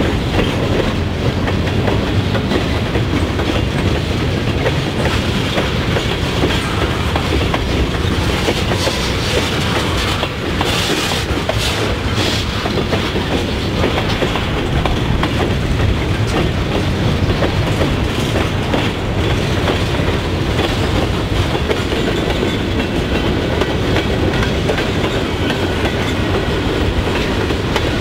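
Freight train cars rolling past: a steady rumble of steel wheels on rail, with clicks as the wheels cross rail joints.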